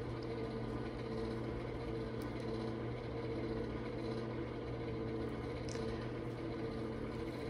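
Steady, even background hum of a running machine or appliance in the workshop, with one faint tick near the end.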